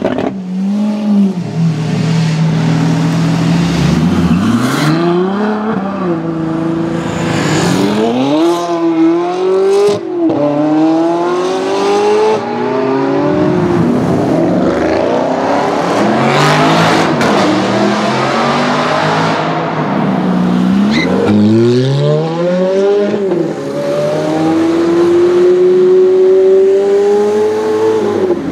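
Loud supercar engines revving and accelerating in a string of clips, the pitch climbing and dropping again and again; near the end one engine holds a long, steady rising note.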